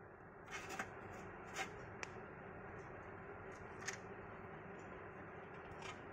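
Faint, scattered light rustles and clicks, about half a dozen, over a steady low room hum.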